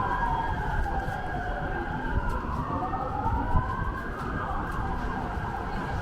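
Emergency vehicle siren wailing, its pitch slowly falling and rising in long sweeps, over steady street traffic noise.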